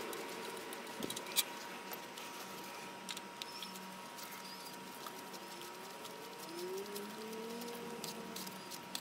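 Light metal clicks and clinks of manual locking hub parts being handled and fitted at a truck's front wheel hub, with one sharper click about a second and a half in.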